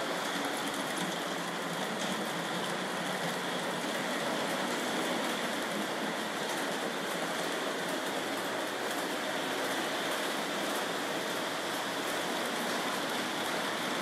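Lionel O-gauge toy train running on three-rail track: a steady rushing noise of its wheels and motor.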